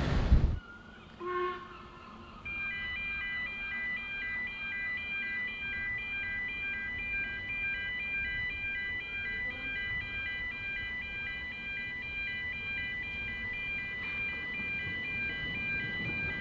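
Level crossing warning alarm sounding: a rapid electronic warble of alternating tones that starts about two and a half seconds in and keeps repeating steadily.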